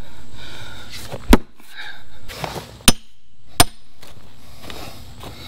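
Sledgehammer striking a steel splitting wedge set in a large oak round: three sharp strikes, one about a second and a half in and two close together near three seconds, the last two with a brief metallic ring.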